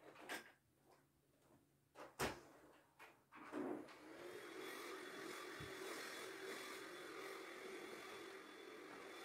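A few faint clicks and one sharp knock, then about three and a half seconds in a Philips SpeedPro cordless stick vacuum comes in and runs steadily, a motor hum with a thin high whine over a hiss of suction.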